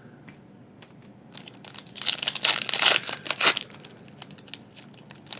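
Plastic crinkling and tearing of a trading-card pack wrapper being handled and ripped open, in a dense burst starting about two seconds in and lasting about a second and a half, with scattered small crackles around it.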